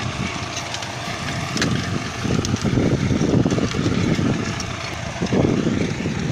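Tractor engine running steadily as it pulls a two-row seed planter through soft soil, with irregular swells of low rumble and a few light clicks.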